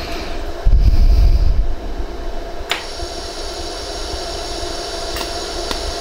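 Pulsed laser welder firing on stainless steel: a sharp snap near the middle and two fainter ones near the end, each a single laser pulse, over the welding machine's steady hum. A low rumble about a second in.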